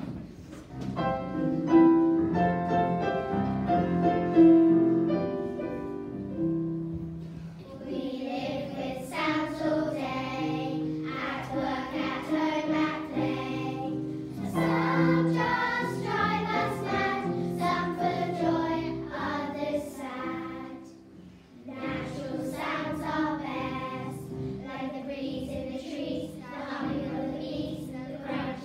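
A choir of young girls singing a song together. A few seconds of held musical notes open it, and the voices come in about eight seconds in, with a short break a little past twenty seconds.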